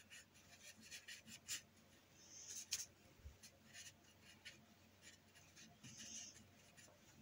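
Faint, short strokes of a paintbrush dragging acrylic paint across canvas, coming at irregular intervals, with a couple of longer swishes near the middle and about six seconds in.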